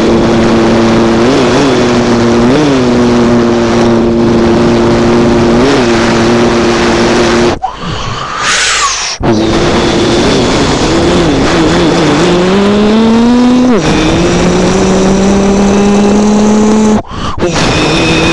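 A person's voice imitating a rally car: a steady engine hum held with short blips like gear changes, a brief high rising squeal like a tyre skid partway through, and a long rising rev later on.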